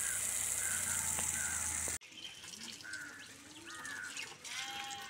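Water from a standpipe tap gushing and splashing over a person's head and shoulders, a steady hiss that cuts off abruptly about two seconds in. Birds then call in short repeated notes.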